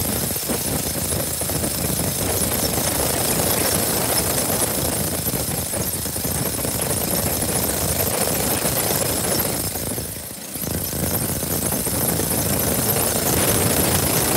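Steady, loud noise of running farm machinery, with a brief drop about ten seconds in.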